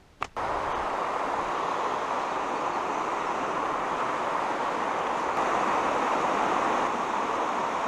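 Steady rushing of flowing river water, an even hiss with no change in level, after a single short click at the very start.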